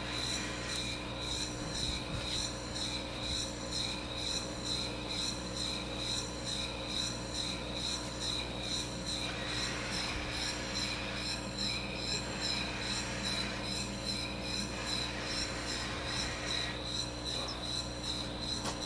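Scale model 1802 Boulton and Watt bellcrank engine running slowly on compressed air: a regular, rhythmic rasping hiss of air and moving parts, with a thin steady high whistle under it.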